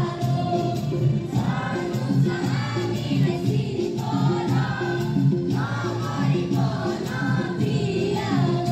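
A song sung by a group of voices together, over an instrumental accompaniment with a steady, regular beat.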